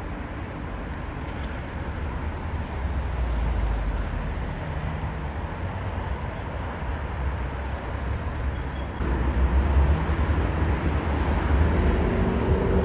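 Steady rumble of a moving motor vehicle, engine and road noise together, heaviest in the deep bass, growing louder about nine seconds in.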